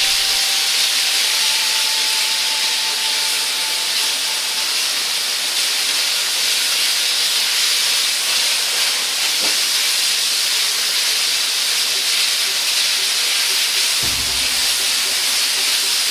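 Sliced pork sizzling in hot oil in a wok, a loud, even hiss. A faint steady whistle-like tone sounds over it for the first few seconds.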